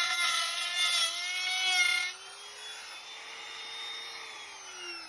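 Electric router spinning a wood bit, cutting into the aluminium lip of an alloy wheel with a loud, rough whine for about two seconds. It then runs free, quieter and slightly higher in pitch. Near the end it is switched off and winds down in a falling whine.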